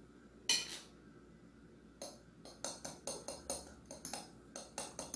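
A brief rustling shake of a powdered-cinnamon packet, then from about two seconds in a metal utensil clinking rapidly against a glass bowl as cake batter is stirred, about four or five clinks a second.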